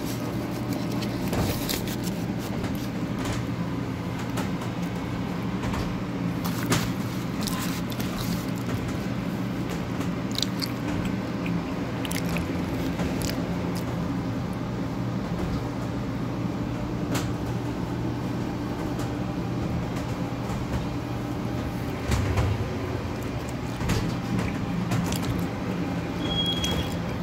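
Steady low hum of restaurant back-room equipment, with close-up chewing and the rustle and crinkle of a paper food wrapper as a tortilla-wrapped item is handled. A short high beep sounds near the end.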